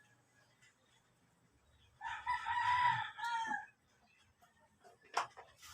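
A rooster crowing once, starting about two seconds in and lasting under two seconds, with a drop in pitch at the end. A short sharp click near the end.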